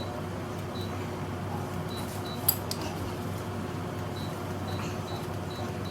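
Window air conditioner running with a steady hum, with one sharp click about two and a half seconds in.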